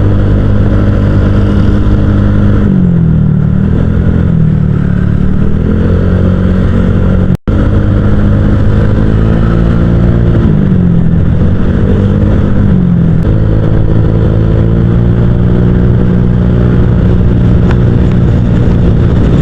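Honda Vario 150 scooter's single-cylinder engine running through an aftermarket ZRC 'copy CMS' exhaust while riding. The exhaust note rises and falls with the throttle several times. There is a brief break in the sound a little past seven seconds in.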